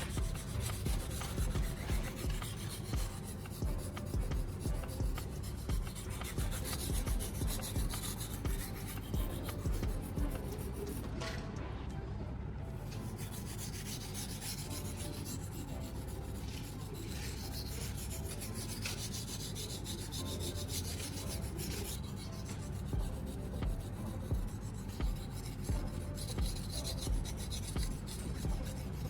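Steel knife blade scraping back and forth across a fine 3000-grit whetstone lubricated with baking soda paste, in repeated even strokes. The strokes are steadier and smoother through the middle.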